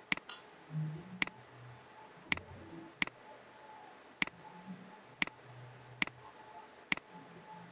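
Computer mouse button clicking, eight sharp single clicks at uneven intervals of roughly a second.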